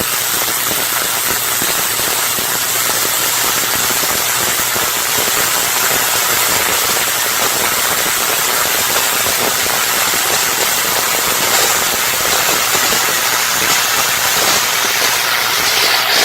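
Sustained electrical arcing from a short circuit: a loud, continuous crackling hiss over a steady low mains hum.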